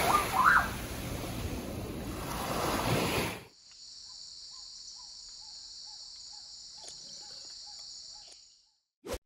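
A loud rushing noise swell with a few rising whistles cuts off after about three and a half seconds. It gives way to a steady high-pitched insect drone of rainforest ambience, with a soft chirp repeating about twice a second, which fades out near the end.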